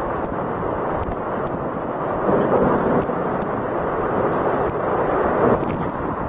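Hurricane eyewall wind rushing through a corridor and buffeting the microphone, loud and unbroken, with gusts swelling about two and a half seconds in and again around five seconds.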